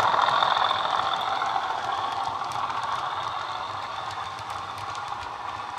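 Bachmann class 37 model's DCC sound decoder playing a recorded English Electric diesel engine through its small speaker, fading steadily as the locomotive draws away. Light clicking of the model's wheels on the track runs under it.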